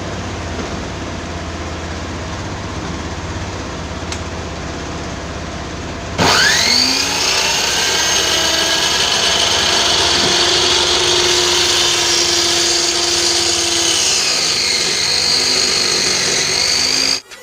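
An electric circular saw's motor switches on about six seconds in, its whine rising quickly up to speed, then runs at a steady high whine with no cutting, before stopping abruptly near the end. Before it starts, there is a lower, steady mechanical noise.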